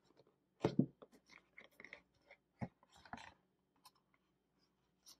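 A box of sweets being opened and handled: scattered faint clicks, taps and rustles, the loudest about two-thirds of a second in.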